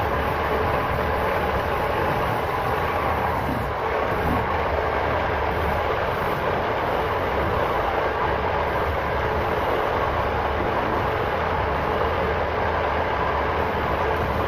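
Motor-driven sanding drum spinning while a wooden cricket bat is pressed against it and sanded, a steady drone with a low hum under the noise of wood being sanded.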